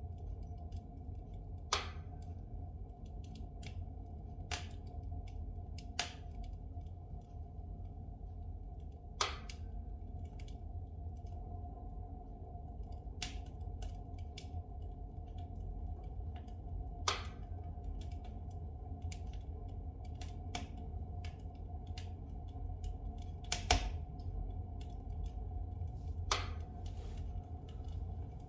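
Spruce logs burning in a fireplace, crackling with irregular sharp pops every few seconds over a steady low rumble of the fire; the loudest pop comes near the end.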